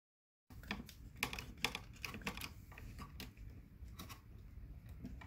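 Irregular small plastic clicks and taps from a dimmer switch, its wires and lever wire connectors being handled and pushed into a plastic electrical box. They begin after a dead-silent first half second.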